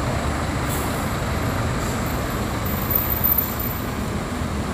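Coach buses' diesel engines running as they drive slowly past, a steady engine rumble mixed with tyre and road noise.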